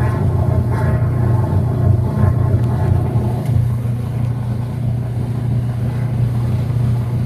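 Whirlpool WTW5300SQ0 top-load washing machine running with a steady low motor hum, and a rushing sound on top that eases off about three seconds in.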